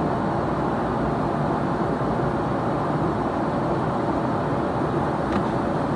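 Steady airliner cabin noise: an even rush of engine and airflow noise inside the passenger cabin, with a faint click about five seconds in.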